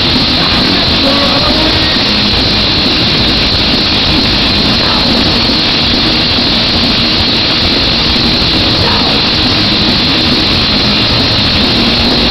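Horror punk band playing live in a large hall, loud distorted electric guitars and drums blurred by the hall's echo into a dense, steady wall of sound.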